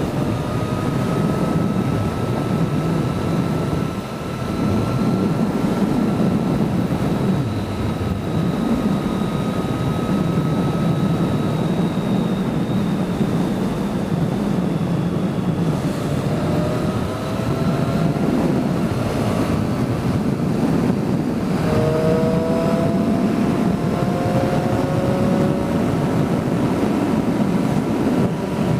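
Motorcycle engine and road noise while riding, with wind buffeting the microphone; the engine's pitch drifts gently up and down.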